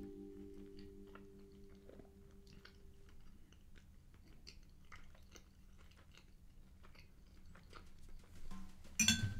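Close-up chewing of a mouthful of food with the mouth closed: faint, scattered small wet clicks and crunches. Held music notes die away over the first few seconds, and there is a single sharp clatter near the end.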